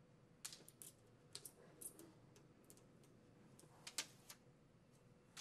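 Faint, irregular clicks and crackles of a paper release liner being peeled off double-sided mounting tape and handled against a plastic soap-dispenser back plate, the sharpest about 4 seconds in.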